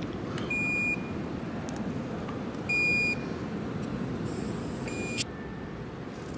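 Three electronic beeps, each about half a second long and about two seconds apart, over a steady low background hum. Just before the last beep comes a short hiss from a plastic soda bottle being twisted open.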